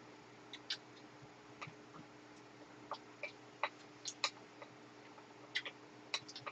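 Faint, scattered clicks and taps of eating: a spoon and chopsticks against plates, with mouth sounds, at irregular intervals over a low steady hum.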